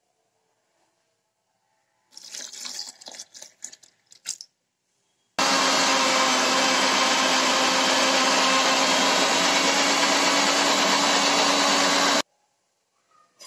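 Electric mixer grinder with a steel jar running for about seven seconds: a loud, steady whir that starts and stops abruptly. A few seconds of clatter and knocks come before it.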